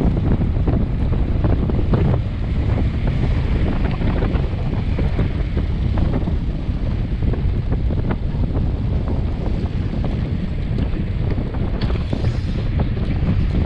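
Wind rushing over the microphone of a bicycle descending at about 40 km/h: a loud, steady rumble with scattered small knocks through it.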